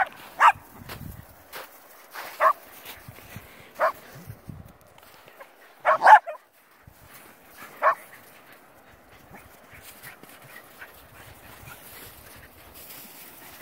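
Shetland sheepdogs barking in short, sharp barks, about seven in the first eight seconds, the loudest a quick double bark about six seconds in.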